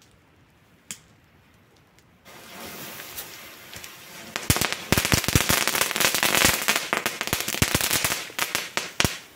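Small F1 youth ground firework going off: a steady hiss starts a little over two seconds in, then from about four and a half seconds it sprays sparks with a dense run of sharp crackling pops, stopping just before the end. A single click comes about a second in.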